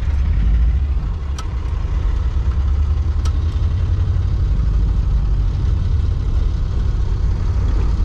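Low, steady engine rumble of a VW Kombi van moving slowly, heard from inside the van, with two faint clicks early on.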